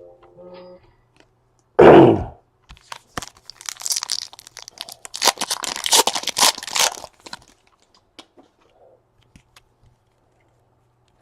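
Trading-card pack wrapper being torn open and crinkled, a few seconds of crackling rips, after a loud thump about two seconds in.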